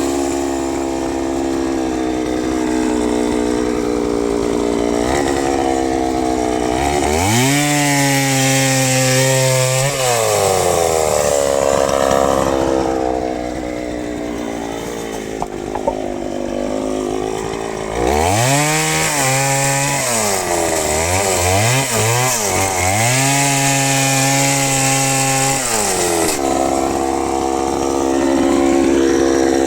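Chainsaw engine running hard at high revs, as in a cut, then dropping toward idle and revving back up several times. There is a quieter, lower-revving stretch in the middle, and a quick series of throttle blips before it settles at full revs again near the end.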